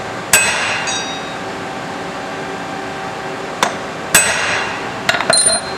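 Hammer striking a steel center punch to peen over the screw ends holding the drive gear on an aluminium clutch basket. Two hard blows ring metallically, one near the start and one about four seconds later, with a lighter tap just before the second and a quick run of light taps near the end.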